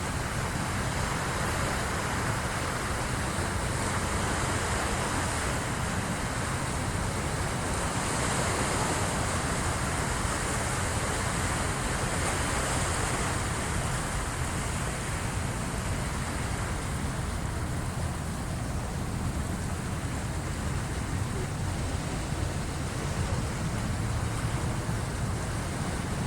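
Incoming high-tide waves washing in as a steady rush of surf, with wind rumbling on the microphone. The rush swells through the first half and eases after about two-thirds of the way.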